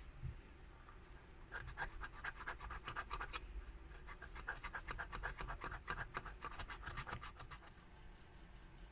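Rapid back-and-forth scrubbing strokes of a hand tool working the rusty padlock, several strokes a second. It starts about a second and a half in and stops shortly before the end.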